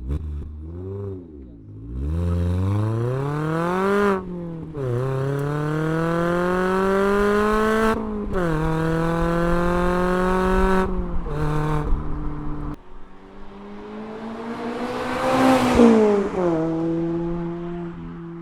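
A Mazda MX-5 ND2's 2.0-litre four-cylinder engine through a Goodwin Racing straight-through race exhaust, revving hard under full throttle. The revs climb through the gears with two quick upshifts, a brief blip follows, and then the car flies past with the note swelling and dropping in pitch as it goes by.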